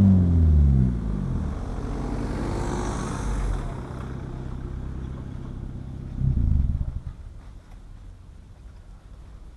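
Stage 1 tuned 2013 Audi A3 8V 2.0 TDI four-cylinder turbodiesel with a sport exhaust, its revs falling back to idle and then idling steadily. A car drives past about three seconds in. After a short burst of engine noise about six seconds in, the engine note cuts out about seven seconds in.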